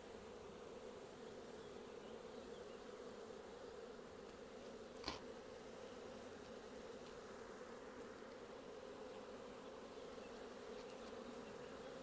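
Honeybees buzzing around an opened hive as they are brushed off a frame of queen cells: a faint, steady hum, with a single sharp click about five seconds in.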